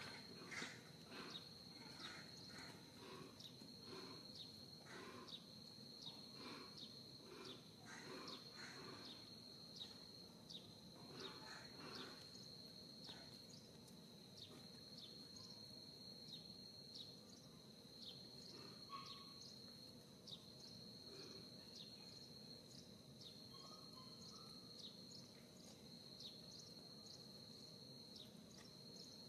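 Faint outdoor insect chorus: a steady high buzz with many short repeated chirps, busier in the first half.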